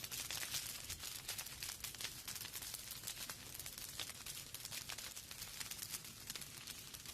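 Rain falling steadily, with a dense patter of individual drops ticking sharply close to the microphone.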